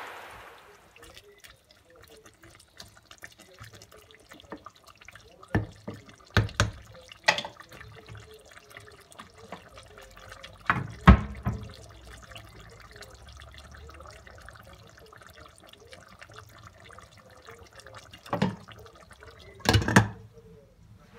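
A pot of green beans in tomato and olive oil simmering, with soft, steady bubbling. A few sharp knocks against the stainless steel pot break in, and just before the end a glass lid is set on it with a double clatter.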